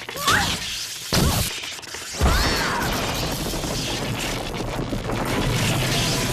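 Cartoon fight sound effects: three sharp hits with quick swooping glides in the first two seconds, then a dense steady crackling noise.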